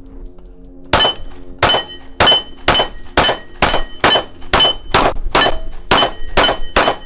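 Glock 19 9mm pistol fired in a rapid string of about thirteen shots, roughly two a second, starting about a second in: the magazine emptied without a pause.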